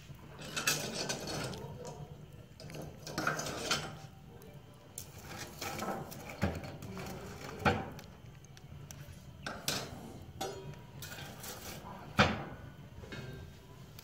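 Fireplace tools working inside a burning wood stove: a hearth brush and an ash shovel scraping and knocking against the metal grate and firebox, with irregular sharp metal clinks, the loudest near the end.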